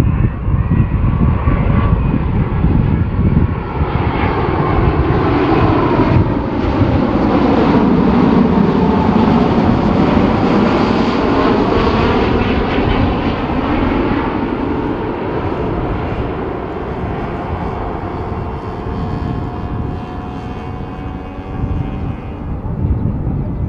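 Boeing 787-9's Rolls-Royce Trent 1000 turbofans on final approach, passing low overhead: the engine whine falls in pitch as the jet goes by, loudest around ten seconds in, then fades to a steadier rumble as it moves off toward the runway.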